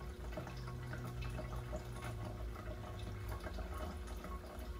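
Faint water dripping and trickling over a low steady hum, with a deeper tone that stops about three seconds in.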